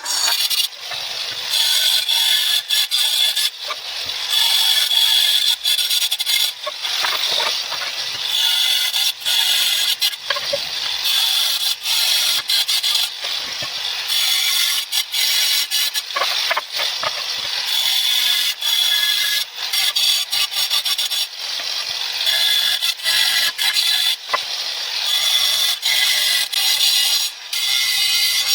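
Makita GA023G brushless cordless angle grinder cutting through roof tiles: a loud, high grinding whine of the disc in the tile, broken again and again by abrupt cuts between one cut and the next.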